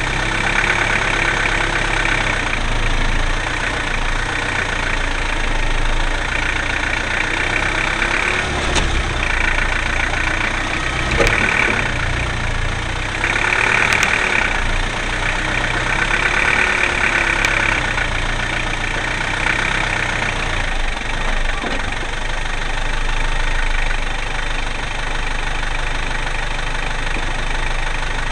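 Land Rover engine running at low speed as the vehicle crawls over rough off-road ground, its note rising and falling with the throttle. A few sharp knocks and rattles come from the body over bumps.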